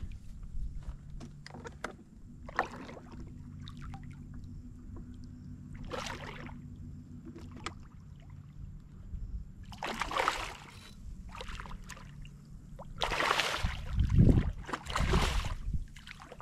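A small hooked fish splashing and thrashing at the surface beside a kayak as it is reeled in, in several short bursts of splashing, the longest and loudest near the end.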